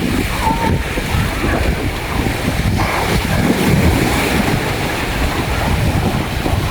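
Waves washing onto a sandy beach, with a steady, loud rumble of wind buffeting the microphone.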